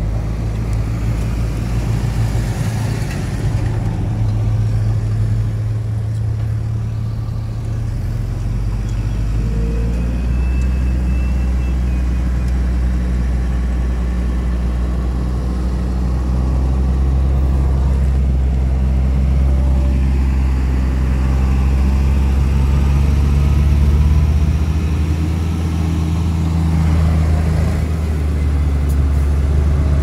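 Heavy diesel engines of a tipper dump truck and a crawler bulldozer running steadily as the truck tips its load of dirt. The engine note changes about ten seconds in and grows a little louder in the second half.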